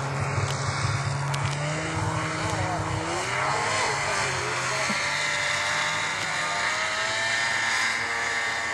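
Snowmobile engine running steadily, its pitch rising and falling briefly about three to four seconds in.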